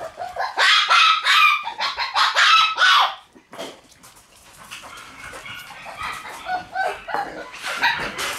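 Shiba Inu puppies yipping and barking in play: a quick run of loud, high yaps over the first three seconds, a quieter stretch, then a few more yips near the end.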